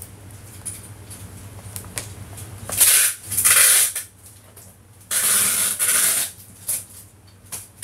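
Large plastic bag of dried lingzhi mushroom crinkling as it is handled, in several noisy bursts: two about three seconds in, a longer run about five seconds in, and a short one near the end, over a low steady hum.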